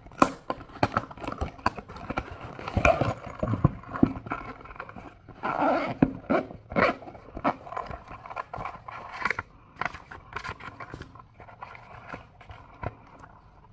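Cardboard packaging being opened and handled, then a zippered hard eyewear case being unzipped: an irregular run of scrapes, rustles and clicks.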